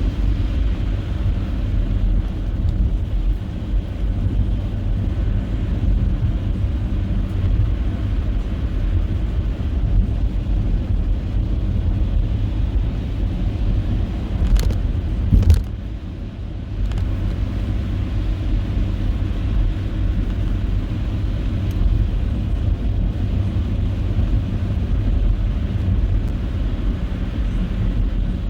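Car driving: a steady low rumble of engine and tyres. Two sharp clicks about halfway through, followed by a brief dip in level.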